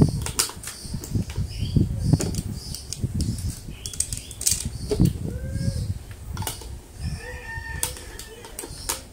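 Cloth cover being pulled tight and fastened over a wine fermenter: fabric rustling and flapping, with irregular bumps and sharp clicks of handling.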